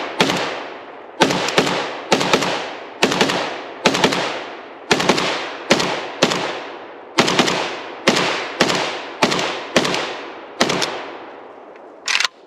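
AKM-pattern rifle in 7.62x39 firing about twenty rapid semi-automatic shots, singly and in quick pairs, each followed by a long echo. The firing stops about eleven seconds in.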